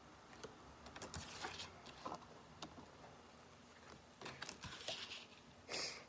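Tarot cards being handled and shuffled: soft flicks, taps and rustles in two spells, with a louder short rush near the end.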